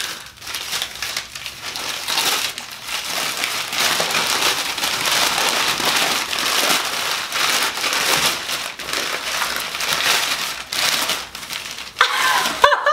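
White packing paper being crumpled and pulled apart by hand: a continuous, uneven crinkling and crackling rustle. A laugh comes in near the end.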